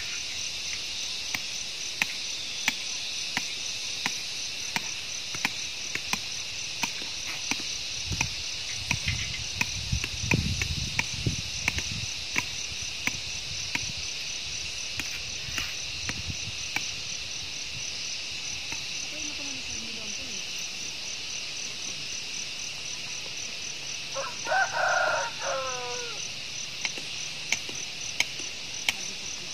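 Steady chorus of field insects, a high shrill trill pulsing evenly, with faint ticks at regular intervals. A short pitched call, ending on a falling note, is heard near the end.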